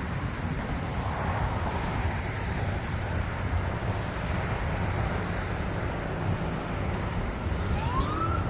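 Steady rumble of road traffic mixed with wind noise on the microphone. A short rising chirp comes near the end.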